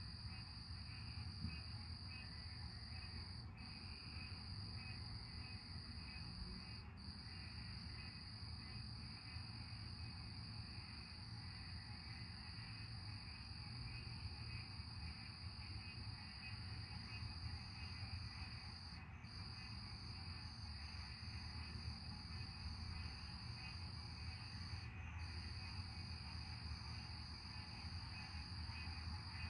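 Night insect chorus: crickets trilling in a steady high-pitched drone that dips briefly a few times, over a low, steady background hum.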